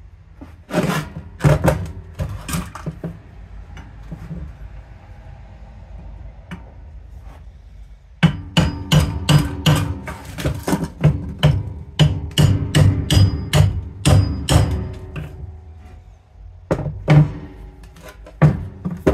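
Repeated metal-on-metal blows as a flat blade is driven with a pry bar into the seam of a small electric motor's steel casing to split it open. A few strikes come about a second in, then a quick run of about two to three blows a second for several seconds, and a few more near the end.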